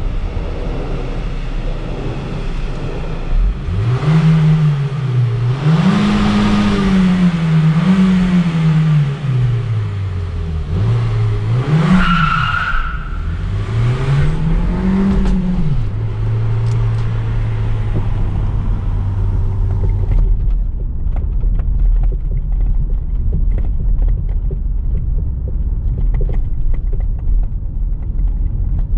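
Renault Grand Espace's 2.0-litre turbocharged inline-four petrol engine revving up and falling back five times, then holding a steady lower note. About 20 seconds in, the sound turns to a duller low rumble.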